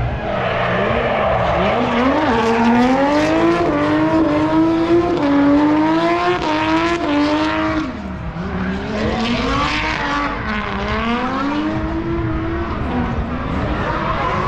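A car's engine worked hard on a race track, its note climbing and dropping again and again as the throttle is pressed and lifted, with a brief dip about eight seconds in.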